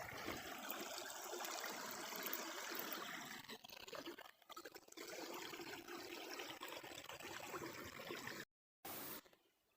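Small brook babbling and trickling. The sound dips briefly about four seconds in, cuts out completely for a moment past eight seconds, and stops near the end.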